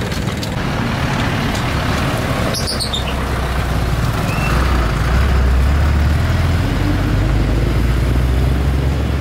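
Road traffic by a street stall: motor vehicle engines running with a steady low rumble that swells for a couple of seconds mid-way. A brief high falling chirp sounds about three seconds in.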